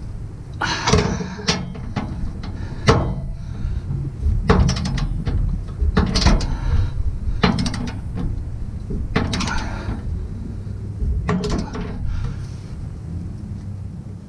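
Ratchet head of a torque wrench clicking in short bursts on each back-swing, about every one to two seconds, as the hitch mounting bolts are tightened.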